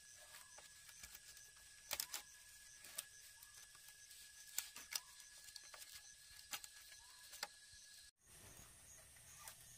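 Quiet handling of a bamboo roof frame: a few sharp clicks and knocks as a wooden lath is tied onto the bamboo rafters, over a faint steady hiss with a thin high tone that stops a little after eight seconds in.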